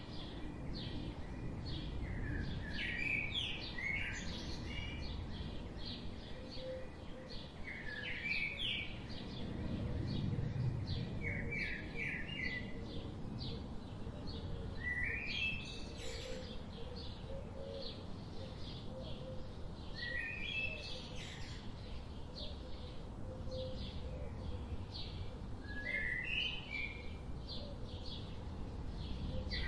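Birds chirping: clusters of short rising chirps every few seconds over a steady low background rumble.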